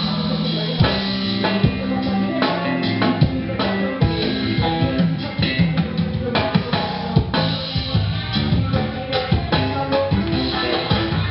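Live band playing an instrumental passage at a soundcheck, the drum kit prominent with frequent hits over sustained bass and guitar.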